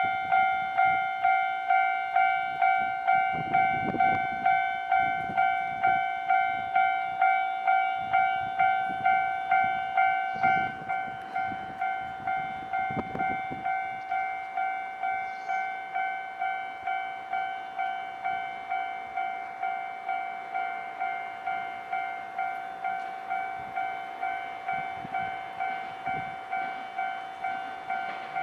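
Japanese level-crossing alarm bell ringing in a steady, even rhythm of sharp, pitched dings, just under two a second, warning that a train is approaching. About a third of the way in the ringing gets quieter and loses some of its higher ring.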